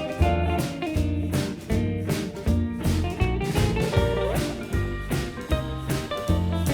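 Background music: an upbeat guitar-led track with a steady beat of bass and drums.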